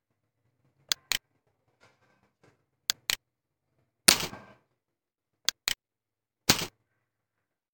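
Computer mouse button clicking in quick press-and-release pairs, three times. Two louder, longer clatters come about four and six and a half seconds in.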